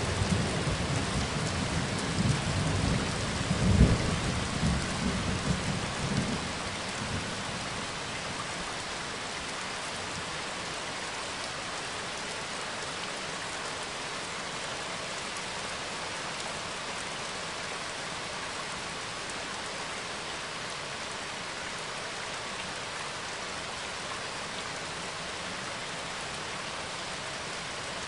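Steady rain, with thunder rumbling over the first several seconds, loudest about four seconds in, then dying away to leave rain alone.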